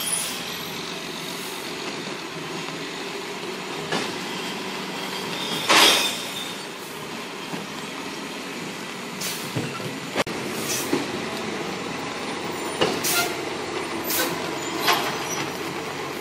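A recycling garbage truck's air brakes hissing again and again as it stops and starts along the kerb. The loudest, longest hiss comes about six seconds in, followed by several shorter ones. Under them runs a steady wash of traffic noise from the wet street.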